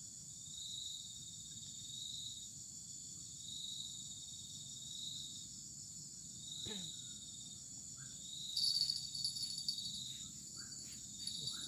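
Insects chirring: a steady high-pitched drone with a shorter call pulsing about every second and a half, growing louder for a couple of seconds near the end.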